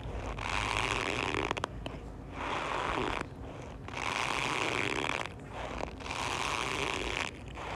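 Cornstarch squeezed and compressed in repeated presses, giving a squeaky, crunching creak. There are about five presses, each lasting about a second, with short pauses between them.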